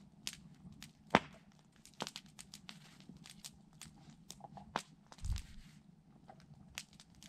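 Wood campfire crackling, with irregular sharp pops and snaps. The loudest pop comes about a second in, and a dull low thump follows a little past five seconds.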